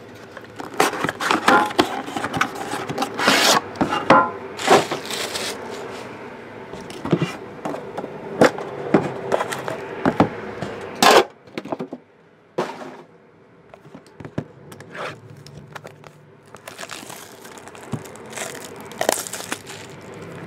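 Trading card box packaging being opened by hand: plastic wrap and cardboard crinkling and tearing with many sharp crackles and taps. About halfway through it turns to quieter handling with scattered taps.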